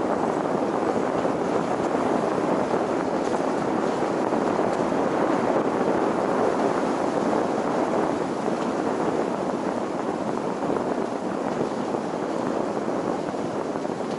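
Steady road and tyre noise with wind from a car being driven, recorded by a vehicle-mounted action camera.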